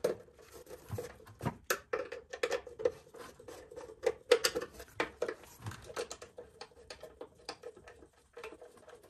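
Irregular clicks and light knocks of a screwdriver and hands working a plastic electronics box cover loose, with a faint steady hum underneath.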